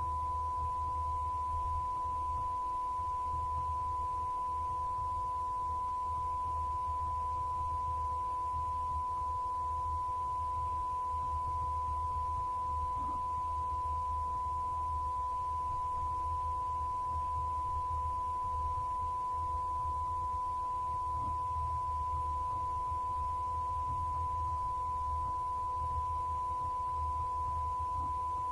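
A steady electronic sine tone, like a test tone or long censor bleep, held without a break over a faint low hum.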